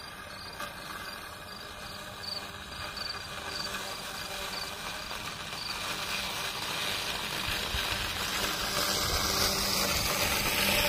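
Mammotion Luba AWD 5000 robotic lawn mower running as it mows, its electric motors giving a steady hum that grows steadily louder as it comes up to and alongside the microphone. Faint, evenly spaced insect chirps sound in the first half.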